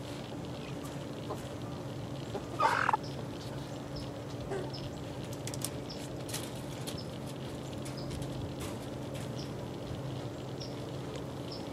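Eleven-week-old chickens in a mixed flock: one loud squawk about two and a half seconds in, then faint short peeps and scattered clicks, over a steady low hum.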